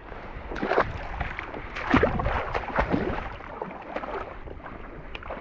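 Water splashing and sloshing unevenly as a person wades through shallow water among lily pads and reeds.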